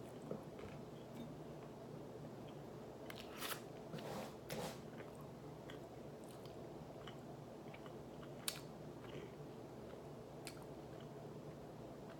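A man chewing food close to the microphone, with a few crisp crunching bites about three and a half and four and a half seconds in and scattered small mouth clicks.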